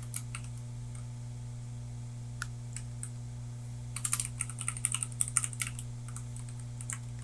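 Computer keyboard typing: a few scattered keystrokes, then a quick run of keys about four seconds in.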